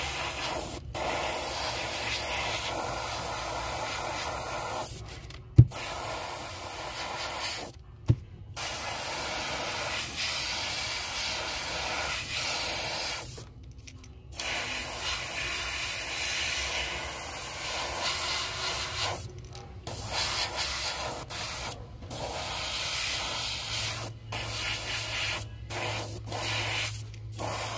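Airbrush spraying paint: a steady hiss of air and paint, stopping for brief moments when the spray is let off. There are two sharp clicks about five and eight seconds in.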